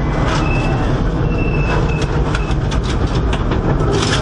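Subaru Impreza WRX STi R4's turbocharged flat-four engine running hard at speed, heard from inside the cabin. Many sharp ticks and knocks of snow and gravel thrown against the underbody and wheel arches come throughout.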